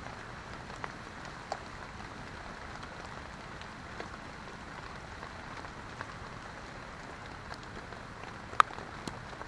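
Heavy rain falling steadily on a tent, an even patter with scattered louder drops. Two sharp clicks stand out near the end.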